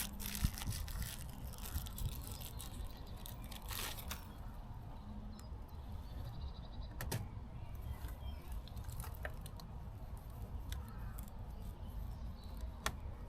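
Scattered small clicks and rattles of small metal parts and tools being handled, a few seconds apart, over a steady low rumble.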